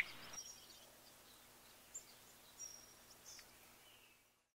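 Very quiet background ambience of faint hiss with a few brief, faint, high bird chirps, dropping to silence near the end.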